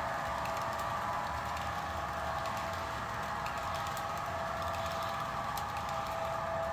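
Model diesel locomotive running steadily along the track: a continuous even hum with faint light clicks from the wheels and rail.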